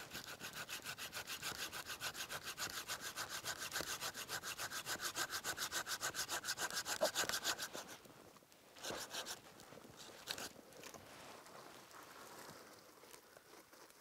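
Folding hand saw cutting through a dead branch still on the tree, in fast, even back-and-forth strokes for about eight seconds before stopping. A few scattered knocks and rustles follow.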